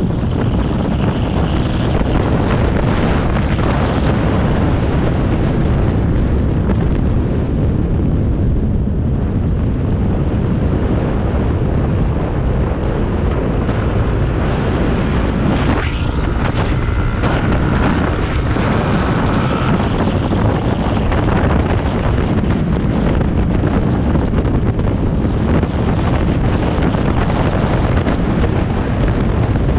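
Strong wind buffeting a camera microphone on a moving rider: a loud, steady rush. A short tone stands out briefly about halfway through.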